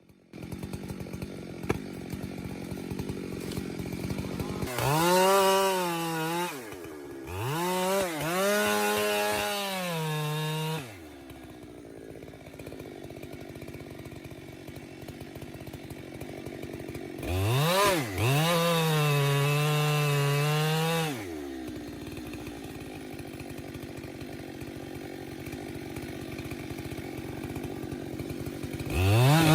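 Two-stroke chainsaw idling with a fast putter, revved up to full throttle and back down twice for several seconds each, with a brief dip in the first, then revving up again near the end.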